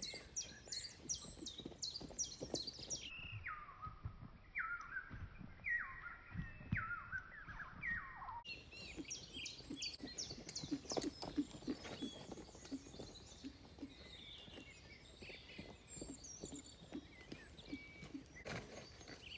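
Songbirds singing in runs of repeated, quickly falling chirps, over irregular dull thuds of a horse's hooves cantering on soft turf.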